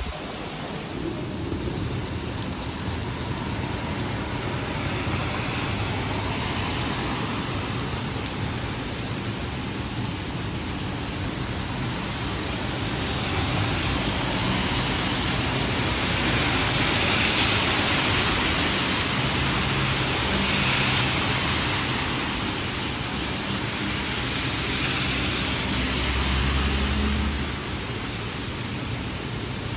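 Steady rain, with vehicles passing on a wet road. The tyre hiss swells up through the middle and again near the end, with an engine hum underneath.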